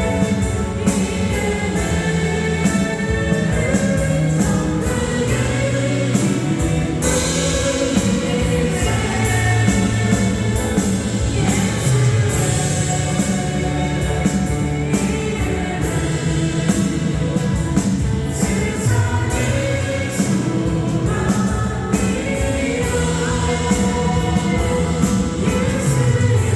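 Christian worship song sung by a group of voices over instrumental accompaniment with a steady beat.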